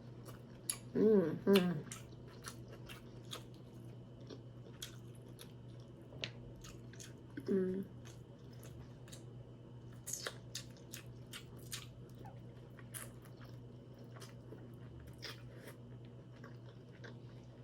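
Close-miked chewing, with many small wet mouth clicks and smacks, as someone eats seafood. There are two short hummed "mm" sounds, about a second in and again around seven seconds in. A faint steady electrical hum runs underneath.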